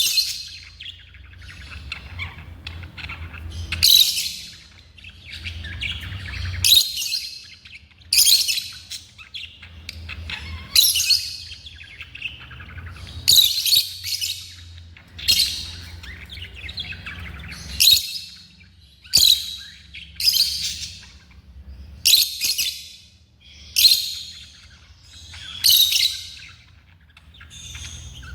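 Lovebirds calling: loud, shrill, high-pitched chirps repeated every second or two, over a low steady hum.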